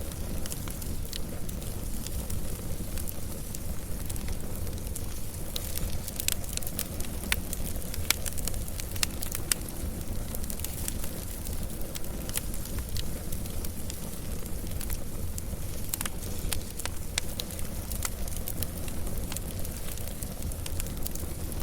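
Wood fire burning, with a steady low rumble and hiss and frequent sharp crackles and pops at irregular moments.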